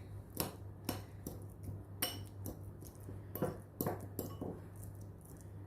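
A utensil tapping and scraping against a bowl in irregular clinks while soft roasted garlic cloves are mashed.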